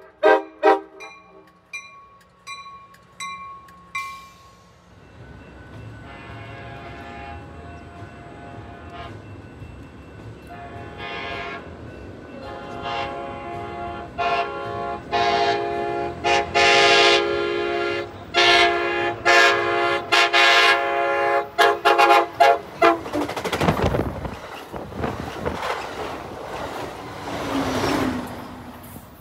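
A bell rings in quick repeated strikes, about twice a second, and stops after about four seconds. An Amtrak Pacific Surfliner cab car's horn then sounds a run of long and short blasts. Near the end the train rushes past with a rushing sound that sweeps down and up.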